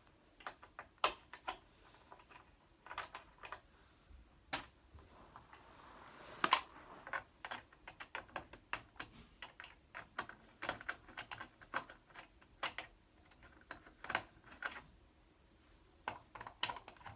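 Irregular plastic clicks and taps as the back casing of a TV is pried apart at its corners, with a short scrape midway.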